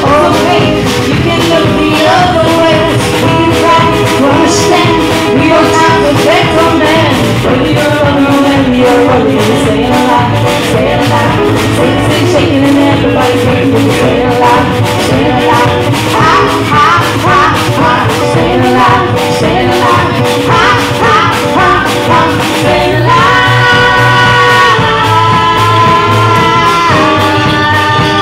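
A live band playing loudly: electric guitar and drum kit with a singer over a steady beat.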